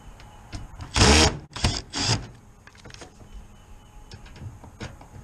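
Cordless power driver run in three quick bursts about a second in, the first the longest and loudest, driving screws. Light clicks and handling noise follow.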